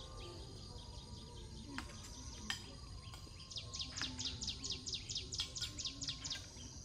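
A bird calling in a rapid series of high, falling chirps, about five a second, in the second half. A few sharp clicks of spoons against bowls and plates come earlier.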